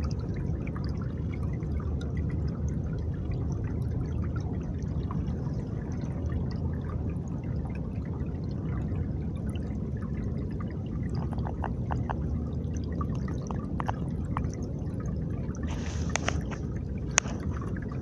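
Water of a partly frozen stream flowing gently over stones: a steady trickling rush, with a few faint clicks near the end.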